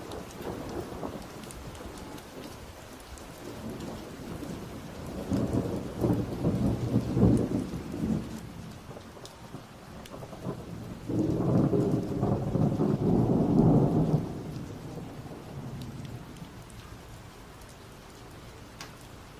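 Steady rain with two long rolls of thunder, each lasting about three seconds, the first about a quarter of the way in and the second just past the middle.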